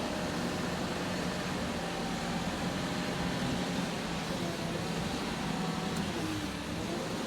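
Engine of the heavy lifting vehicle running steadily with an even low hum.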